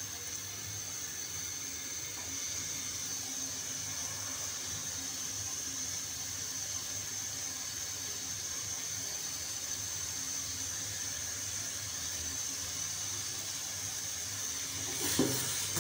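Steady hiss of a gas stove burner heating a steel pan of milk, with a faint low hum. The milk is coming up toward the boil, small bubbles just forming at the rim.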